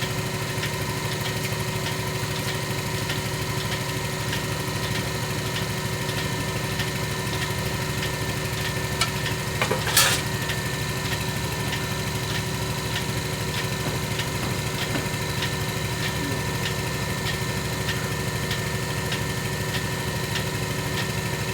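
Milking machine's vacuum pump motor running with a steady hum, with a faint regular ticking about every two-thirds of a second. A single sharp knock about ten seconds in.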